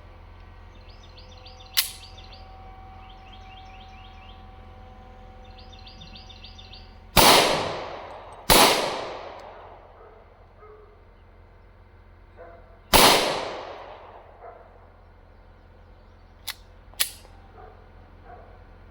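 Three pistol shots from a Smith & Wesson M&P 2.0 10mm firing .40 S&W rounds: two about a second and a half apart, then a third about four seconds later, each with a long ringing echo. A few light clicks come before and after the shots, and birds chirp in the background.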